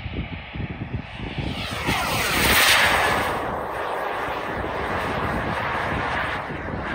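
Turbine engine of a radio-controlled HSD F-16 model jet passing overhead: a jet whine that swells to its loudest about two and a half seconds in and falls in pitch as it goes by, then runs on steadily.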